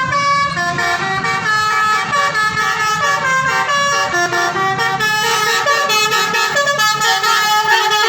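Indonesian 'telolet' bus horn playing a tune: several air-horn tones sounding together, stepping from note to note every fraction of a second without a break.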